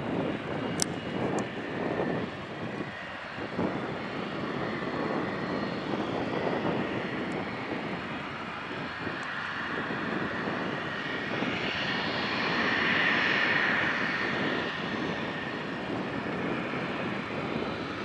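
Boeing 737-800's CFM56-7B jet engines running at taxi power: a steady rushing noise with a high whine that swells louder for a few seconds about two-thirds of the way through. A single sharp click about a second in.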